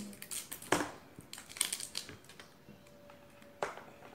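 Small clicks and rustles of handling, a handful of sharp ones scattered through, as a new lipstick is unwrapped and opened.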